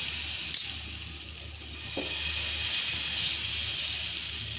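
Besan (gram flour) batter sizzling steadily in an oiled nonstick pan as it is poured and spread with a ladle, with a sharp tap about half a second in.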